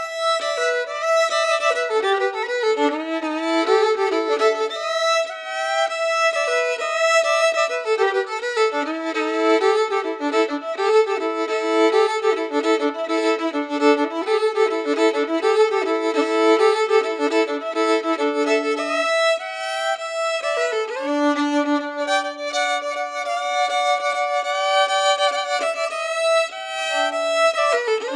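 Violin music: a quick, busy line of notes with a held higher note sounding over it at times, so that two parts are heard at once.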